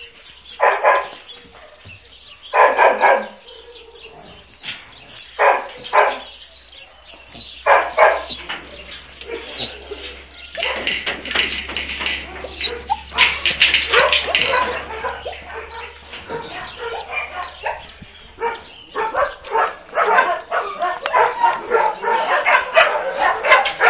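Kennelled dogs barking: a few single barks in the first seconds, then several dogs barking and yapping over one another, building to almost unbroken barking near the end.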